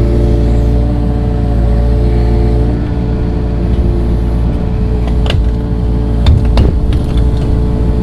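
Tractor engine running steadily under work, with a few sharp knocks a little past the middle.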